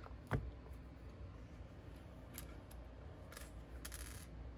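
A pistol frame and a bench block handled on a gun-cleaning mat: one sharp click a third of a second in, then a few faint brief scrapes and rustles.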